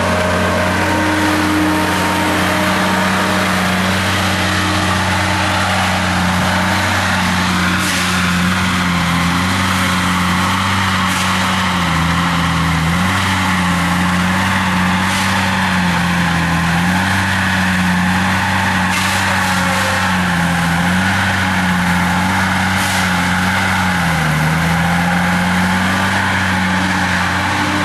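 Engine of tree-removal machinery running steadily, its pitch sagging briefly every few seconds as it takes load, with a few sharp cracks in between.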